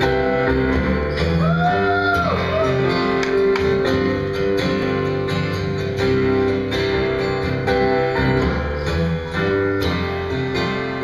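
Live instrumental intro of a pop song: strummed acoustic guitar over held chords from a Kurzweil electronic keyboard, changing chords every second or two.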